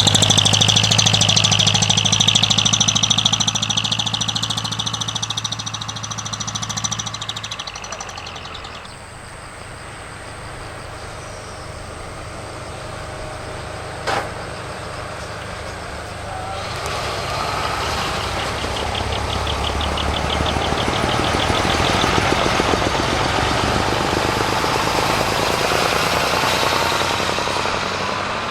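Diesel engines of large trucks running as they drive in, loud at first, dropping away, then swelling again. A single sharp knock halfway through.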